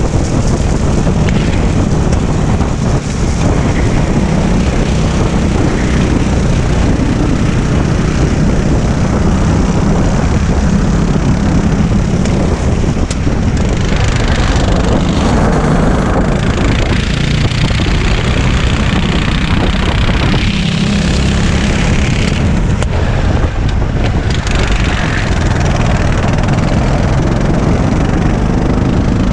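Racing kart's engine running hard on track, the note rising and falling as the throttle comes on and off through the corners, with wind buffeting the on-board microphone.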